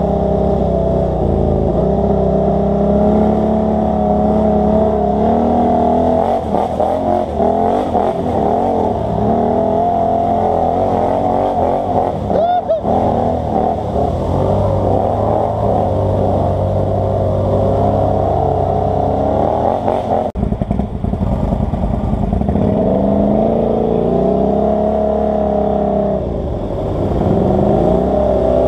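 ATV engine running under throttle on a dirt and mud trail, its pitch rising and falling as the rider speeds up and slows down, with a brief dip about two-thirds of the way through.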